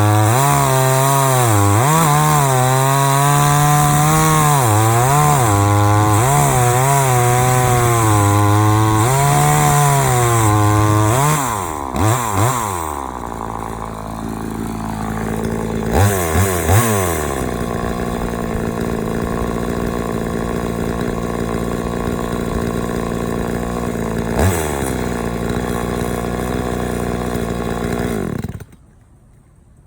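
Chainsaw in an Alaskan chainsaw mill running at full throttle, its pitch wavering up and down as the chain cuts. About 11 seconds in the throttle is released, the saw is revved briefly a few times and settles into a steady idle, then it is shut off shortly before the end.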